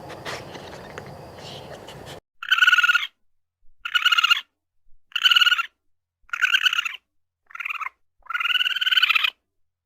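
Raccoon trilling calls: six short, quavering, pitched calls about a second apart, the last one longer. They follow two seconds of low noise with small clicks.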